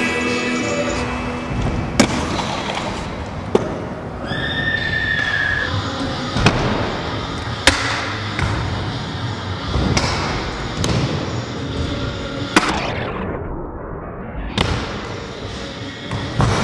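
Stunt scooter riding on concrete: the wheels roll with a steady rumble, broken by sharp clacks of landings and grinds on ledges about every one to three seconds. A brief high squeal sounds about four seconds in.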